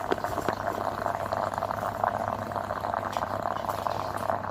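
Electric steam inhaler boiling its water on the heater: a steady, dense crackling bubble as it puts out steam.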